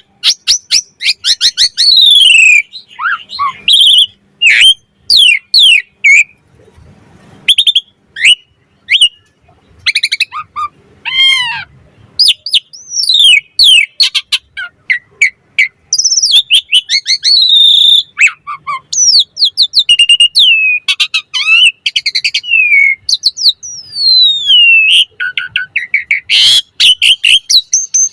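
Asian pied starling (jalak suren) singing a long, varied song of loud whistles, rising and falling glides and quick chirps, broken by short pauses. A harsh rasping note comes near the end.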